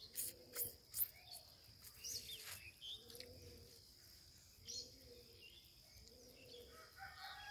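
A toothbrush scrubbing teeth in short quick strokes, about three a second, in the first second and again briefly around two seconds in. Birds chirp now and then over a steady high insect drone.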